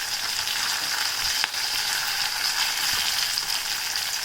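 Chopped onion, garlic and curry leaves frying in hot oil in a cast iron kadai: a steady sizzling hiss with a faint click or two.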